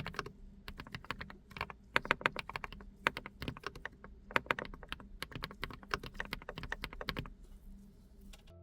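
Typing on a GX87 SE custom mechanical keyboard with KeysU Bunny switches, recorded through a smartphone microphone: quick irregular runs of keystrokes that stop about seven seconds in.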